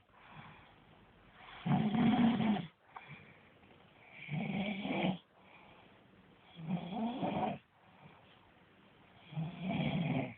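Snoring in a steady rhythm: four long snores, each about a second long, coming roughly every two and a half seconds.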